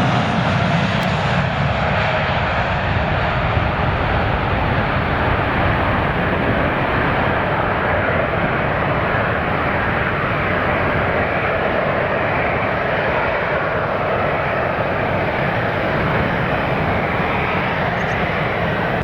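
Airliner engines at high power during a takeoff, a loud, steady engine noise that eases slightly near the end.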